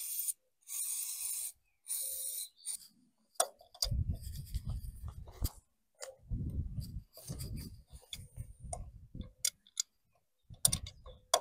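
A ratchet wrench clicking in a few short back-strokes, working on bolts of the tractor's hydraulic pump. It is followed by dull knocks and clanks of tools and metal parts being handled.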